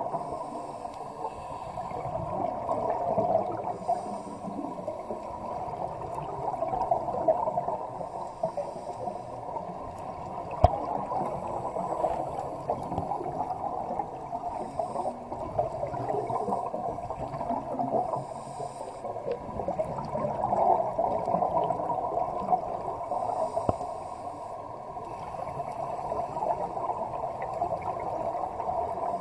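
Muffled underwater ambience of scuba divers breathing through their regulators: a steady gurgle of exhaled bubbles, with a faint hiss of inhalation every few seconds. A single sharp click comes about ten seconds in.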